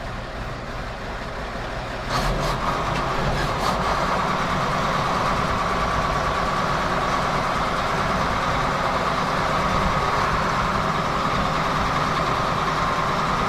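Engine of the farm vehicle hauling a grain load running steadily. It grows louder about two seconds in, with a few clicks, then holds a steady whine.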